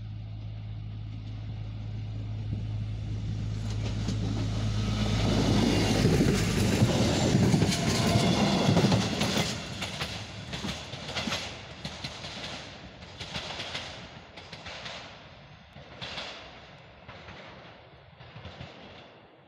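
PESA SA133 diesel railbus coming up with a steady engine hum that grows louder, passing close by about seven seconds in. It then moves off with a run of regular wheel clicks over the rail joints that fade with distance.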